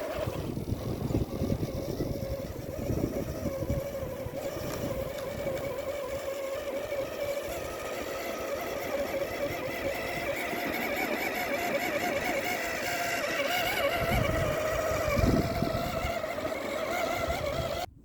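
Whine of a radio-controlled crawler truck's electric motor and gears, wavering a little in pitch, with wind buffeting the microphone in gusts. It cuts off suddenly near the end.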